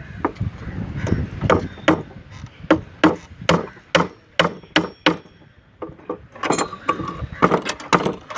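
Steel reinforcing bar being bent into column stirrups: a rapid run of sharp metal knocks and clanks, two or three a second, with a brief lull a little past the middle.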